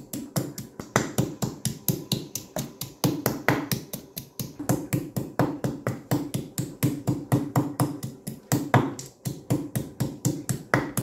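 Wooden pestle pounding garlic cloves and green chillies in a stone mortar: rapid, steady knocks, about four to five a second, crushing them toward a fine paste.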